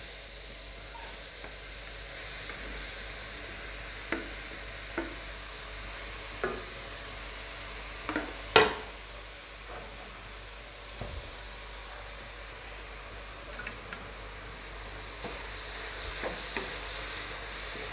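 Grated carrots sizzling in hot ghee in a metal kadai, a steady frying hiss, stirred with a wooden spatula. Now and then a sharp knock of the utensils against the pan, the loudest about eight and a half seconds in.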